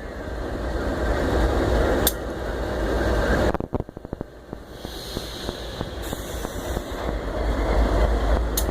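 Wind rushing over the microphone on top of the low rumble of a diesel locomotive, with a couple of sharp clicks, one about two seconds in and one near the end. The noise drops off suddenly a little over a third of the way through and then builds back up.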